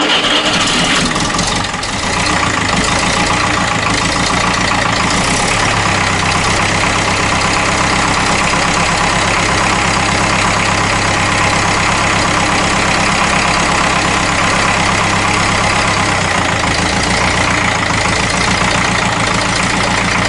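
Ferguson TEF-20 tractor's four-cylinder diesel engine running just after starting on a freshly bled fuel system, its note changing about five seconds in and again near sixteen seconds.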